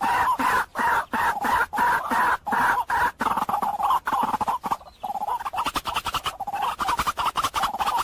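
White-breasted waterhen calling: a fast, continuous run of repeated notes, broken by short gaps every second or so.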